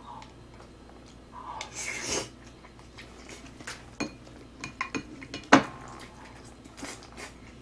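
Spoon and chopsticks clinking and scraping against bowls and the serving tray: scattered sharp clicks, a longer scrape about two seconds in, and the loudest clink about five and a half seconds in.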